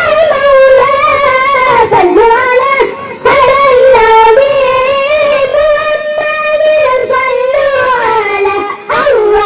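A child singing an Islamic sholawat dzikir in a very high voice, holding long wavering notes that slide down at the ends of phrases, with short breaths between them.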